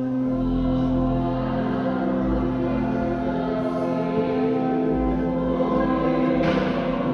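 Church music with choir singing: long, held chords that swell in at the start and carry on steadily.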